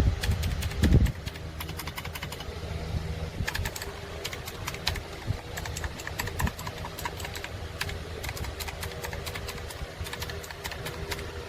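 Typing on a Rapoo V500 Pro mechanical keyboard with clicky blue switches: quick runs of key clicks over a low steady hum, with a heavier thump about a second in.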